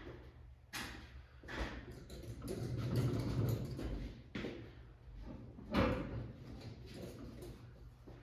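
A heavy car being pushed by hand across a garage floor: a low rumble that swells about three seconds in, with several sharp clunks and knocks.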